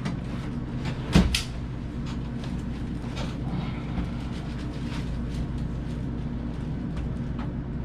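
A person turning over onto his stomach on a padded treatment table: a sharp knock about a second in, then faint shuffling and small creaks, over a steady low room hum.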